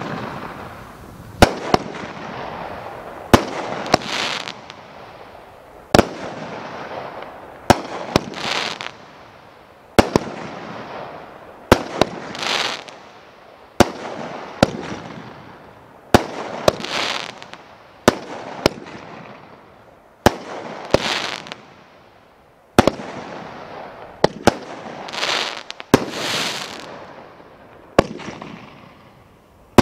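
A 500-gram consumer firework cake firing shot after shot, about one every two seconds. Each shot is a sharp bang followed by a hissing, crackling break that swells and fades.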